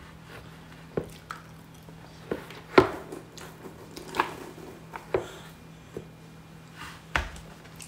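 Chewing and crunching hard kerupuk crackers close to the microphone: a string of separate crisp crunches about a second apart, over a faint low steady hum.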